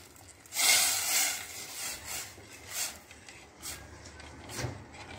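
Water poured from a glass into a stainless steel pot of bulgur pilaf, a loud splash lasting about a second, followed by a metal spoon stirring and scraping against the pot several times.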